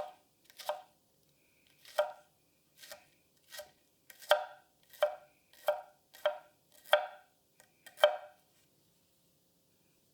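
Kitchen knife cutting through a shallot and knocking on the cutting board: about a dozen single cuts at uneven spacing, then stopping.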